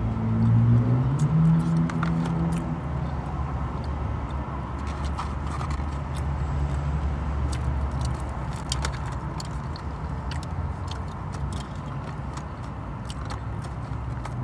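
Low steady hum of a vehicle engine heard from inside a car cabin, rising in pitch about a second in, with scattered small clicks and rustles of food being handled and eaten.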